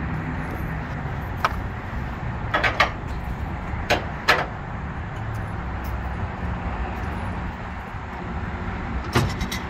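A few sharp metal clinks and knocks from ratchet-strap hardware against a flatbed trailer as the straps are thrown and handled, over a steady low background rumble. There is a single clink, then a quick group of clinks, then two louder knocks, and another group of clinks near the end.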